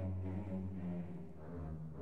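Orchestral music with low, held brass notes.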